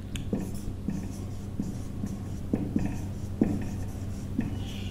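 Marker pen writing on a whiteboard: a series of short, irregular strokes and taps of the tip over a faint steady low hum.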